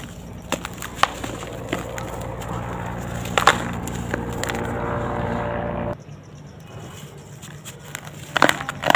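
Dry sand-cement lumps crumbled by hand over a tub of loose powder: scattered sharp crunches and cracks, with grit trickling back down. A steady low hum sits underneath and cuts off suddenly about six seconds in.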